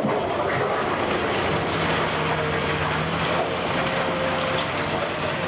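Cat 374D excavator's diesel engine running steadily under a dense wash of noise, with a faint humming tone coming in from about a second and a half in.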